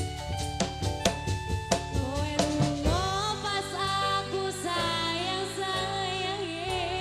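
Tongtek percussion band playing live dance music: quick drum strokes with a melodic line, then a singer comes in about three seconds in, with a wavering voice over held accompaniment while the drum strokes drop back.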